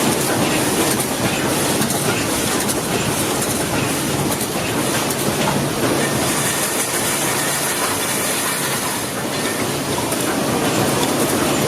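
Wire mesh welding machine running: a steady, dense mechanical clatter and hiss with a low hum underneath.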